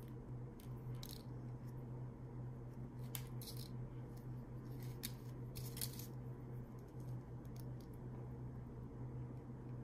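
Small hard-plastic clicks and scrapes, a handful spread irregularly through, as a G.I. Joe Snow Serpent action figure and its snowshoe and backpack accessories are handled and fitted. A steady low hum runs underneath.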